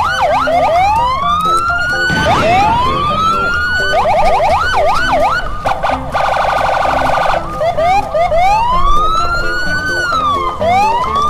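Siren sound effects: slow rising wails, fast up-and-down yelps and a warbling stretch, with a buzzing pulsed tone in the middle, layered one after another.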